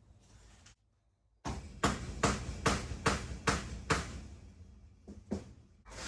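Hammer striking the end of a screwdriver in quick, even taps, about two a second for a couple of seconds, then two more a little later: the trick for breaking a stuck screw free.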